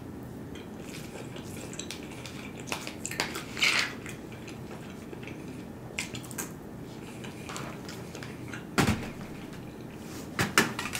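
Metal fork scraping and clicking in a small plastic takeaway tub of rice as forkfuls are scooped and eaten, with chewing between. The clicks come in scattered small clusters, the loudest a few seconds in and near the end.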